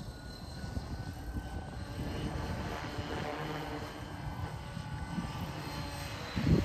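Align T-Rex 550 electric radio-controlled helicopter in flight overhead: a steady whine from its motor and rotor over a low rumble, growing louder near the end.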